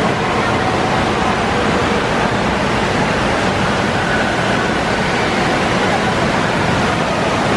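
Steady rush of water from fountain jets and slides splashing into the pools of an indoor water park, with faint distant voices of a crowd under it.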